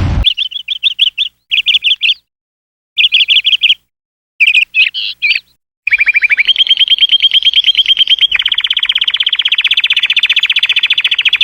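Canary singing: several short phrases of rapid repeated high notes broken by silent gaps, then about halfway through a long unbroken trill that shifts to a lower, fuller trill later on.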